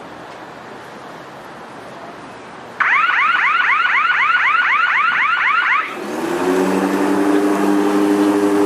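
An electronic alarm gives rapid warbling chirps, about six a second, for about three seconds, then stops and a cordless electric lawnmower's motor starts up and runs with a steady hum.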